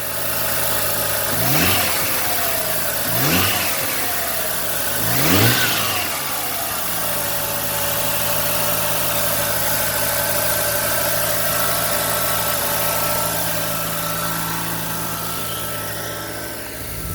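Mazda RX7's two-rotor rotary engine blipped three times, each rev rising and falling quickly, then settling into a steady idle that is still running fast while the engine warms up.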